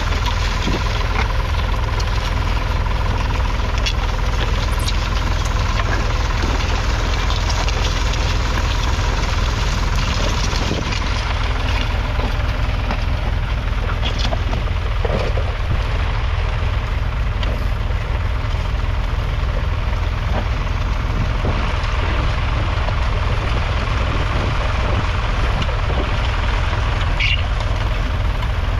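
1966 Ford 4000's 3.3-litre three-cylinder diesel engine running steadily, with a diesel knock.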